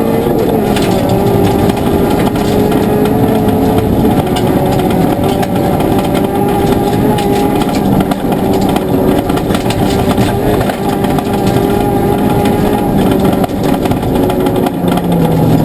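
Ford Fiesta ST rally car's engine running hard, heard from inside the cabin, with gravel noise from the tyres and underbody. The engine pitch drops just after the start, holds fairly steady, and falls again near the end.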